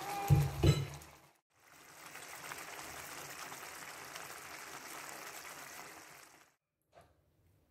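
Two dull thumps in quick succession near the start. Then tomato sauce simmering around chicken drumsticks in a pan, a steady bubbling that stops shortly before a single click near the end.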